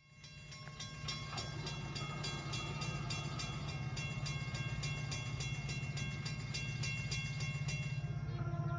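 Grade-crossing warning bell ringing at about three strikes a second over a steady low rumble from the approaching train. About eight seconds in, the horn of the Amtrak MP15DC locomotive begins to sound for the crossing.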